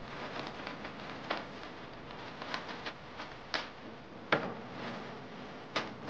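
Dry tea leaves rustling and crackling as hands sift them and let them fall onto a woven bamboo tray. A few sharp knocks, the loudest about four seconds in.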